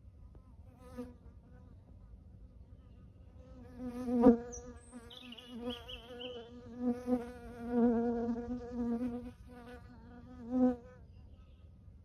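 A flying insect buzzing close past the microphone: a wavering hum that starts about three and a half seconds in, swells and fades several times, and dies away near the end. There is a sharp knock about four seconds in.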